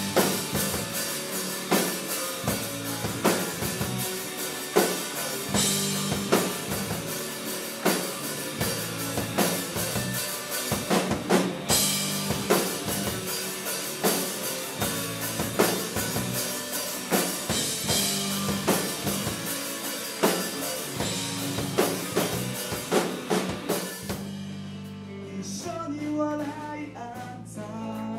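Live rock band playing a ballad, the drum kit keeping a steady beat with bass drum and rimshots under the band. The drums drop out about four seconds before the end, leaving a softer, sparser passage.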